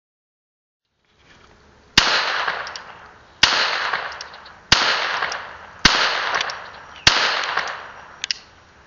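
Five shots from a North American Arms five-shot .22 Long Rifle single-action mini revolver, fired about a second and a quarter apart, emptying the cylinder, each shot with a long echoing tail. A faint click follows near the end.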